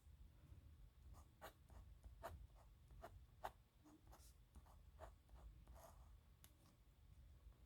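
Faint scratching of a metal nib pen on paper: a dozen or so short, quick strokes at irregular spacing, as in handwriting.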